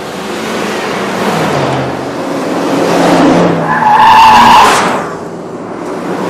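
Cars driving fast past the camera, engine pitch falling as one goes by. About four seconds in, tyres squeal loudly for about a second as a car takes the bend at speed.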